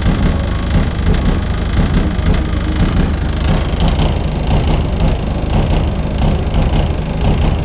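Deep bass from a pickup's blow-through subwoofer system, eight Skar DDX subwoofers firing through the rear window panel, heard from outside the cab as a loud, steady low rumble.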